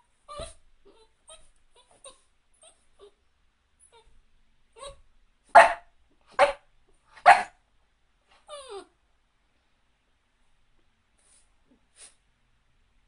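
Dog giving a few faint whimpers, then three short loud barks less than a second apart, followed by a falling whine.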